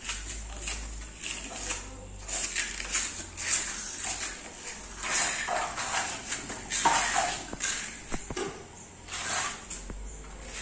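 Trowel scraping and dabbing cement mortar into the gap above a granite window frame, in irregular strokes with small clicks.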